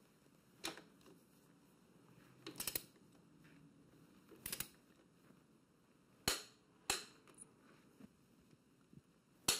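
Sharp metallic clicks from a T55 Torx wrench tightening motorcycle shock bolts toward 100 newton meters: a single click, two short clusters of quick clicks, then single clicks spaced apart.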